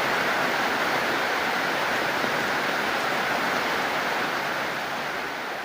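Heavy rain falling steadily, an even hiss with no separate drops standing out, beginning to fade out near the end.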